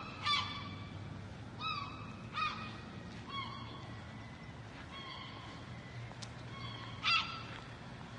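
Gulls calling repeatedly in short, arched cries, loudest about seven seconds in, over a steady low background ambience.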